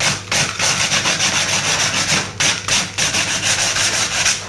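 Hand sanding: a sanding pad rubbed back and forth in quick strokes along the edge of a computer case panel, a rasping hiss that breaks off briefly between strokes, over a steady low hum.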